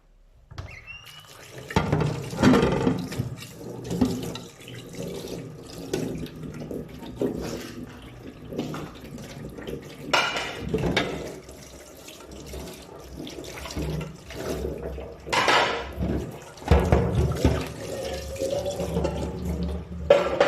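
A tap running into a sink while dishes are washed by hand, with clatters and splashes as pieces are handled; it begins about half a second in.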